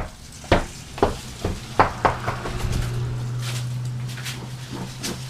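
Sharp metallic clicks and knocks, about one every half second, as a Jeep's spare tire and its lug nuts are worked off the tailgate carrier. After about two seconds a steady low hum comes in and holds.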